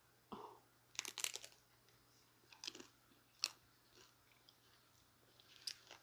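Close-miked chewing of a chicken taco: faint, scattered crisp crunches and mouth clicks, the loudest cluster about a second in.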